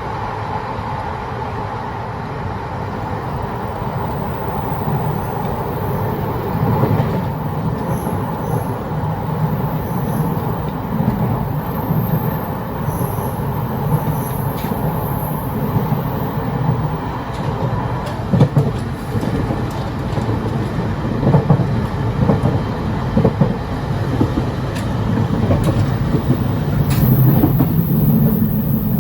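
Ride noise in the gangway connection between cars of a running Taiwan Railways EMU1200 electric multiple unit: a steady rumble and clatter that grows slightly louder, with several sharper knocks in the second half.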